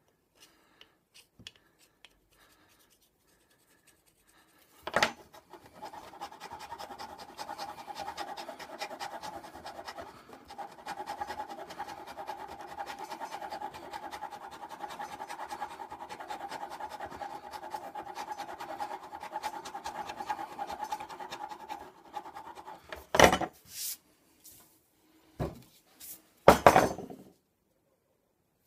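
Knife blade scraping and shaving a carpenter's pencil against a bench top to sharpen it: a long run of rapid scratchy strokes from about five seconds in. Near the end come a few sharp knocks.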